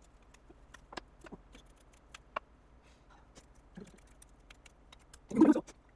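A metal spoon clicking and tapping against a bowl as rice is mixed with spicy braised short rib, the taps light and scattered, then a louder half-second scrape near the end.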